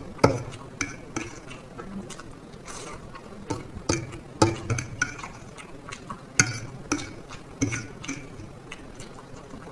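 Close-miked eating of black bean noodles: irregular sharp clicks and taps of a utensil against the dish, about a dozen spread through, mixed with softer chewing and slurping sounds.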